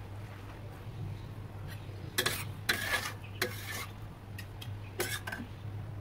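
Metal spatula scraping and clattering against a stainless steel wok while tossing stir-fried noodles: a cluster of scrapes about two seconds in and another short one near the end, over a steady low hum.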